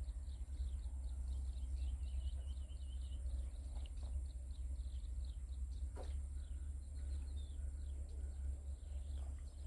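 Outdoor ambience of birds chirping repeatedly in short calls, with a brief trill about two seconds in, over a steady low rumble and a steady high-pitched whine. A single click sounds about six seconds in.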